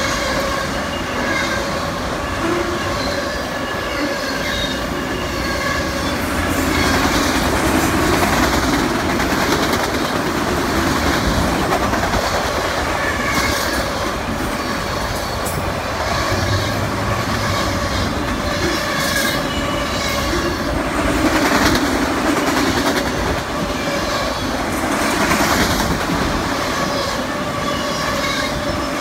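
Empty autorack freight cars rolling steadily past, with a continuous rumble and the wheels clacking repeatedly over rail joints. A steady squeal of wheels on the rails runs underneath.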